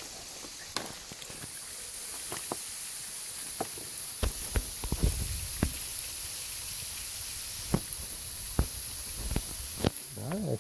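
Irregular footsteps crunching and clattering on dry leaves and rocks, over a steady high drone of insects.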